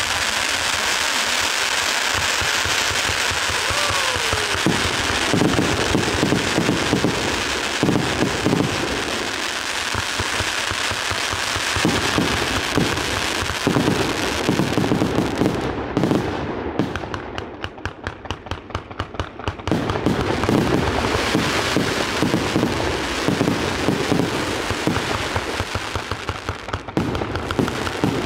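A 1088-shot consumer fireworks cake firing without a break: a dense stream of shots launching and bursting over a continuous hiss, with a run of rapid, evenly spaced pops a little past the middle.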